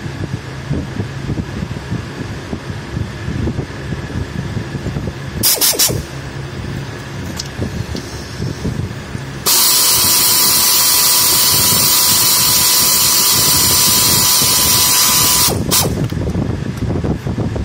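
Compressed-air blow gun: a short blast about five seconds in, then a steady hiss lasting about six seconds with a thin whistle, which cuts off suddenly.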